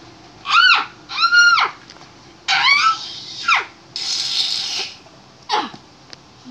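A series of about five high, meow-like wailing cries, each rising and then falling in pitch, with a breathy, hiss-like stretch about four seconds in.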